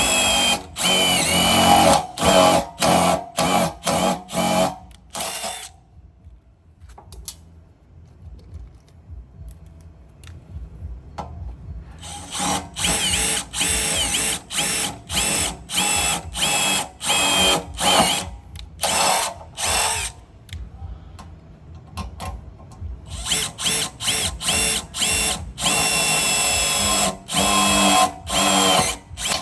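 Makita DTD173 18V brushless cordless impact driver run in many short bursts of about half a second, each with a high motor whine, with two quieter gaps of several seconds between the runs of bursts.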